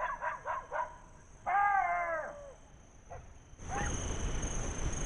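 Golden jackals calling: a quick run of short yips, then one long wavering whine that drops in pitch as it ends, and a single short yelp. A steady rushing noise comes in suddenly near the end.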